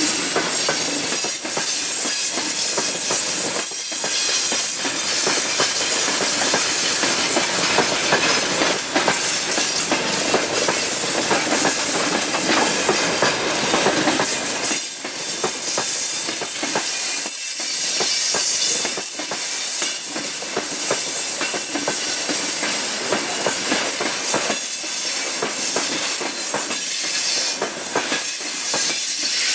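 Freight wagons (open gondolas and hopper cars) rolling past close by: a steady rumble of wheels on rail, with repeated clicks as the wheelsets cross rail joints.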